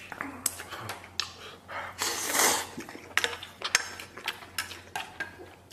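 Wooden chopsticks clicking and scraping against a stainless-steel bowl while noodles are eaten, with a longer slurping noise about two seconds in.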